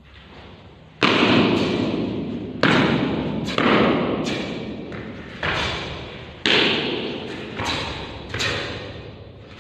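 Sharp slaps and thuds from a karate kata performed alone: about seven irregularly spaced strikes, the first two loudest, each ringing on for about a second in a large hall.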